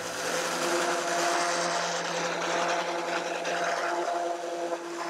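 Electric random orbital sander running with its pad on a wooden board: a steady motor whine under the hiss of sandpaper on wood, dipping briefly near the end.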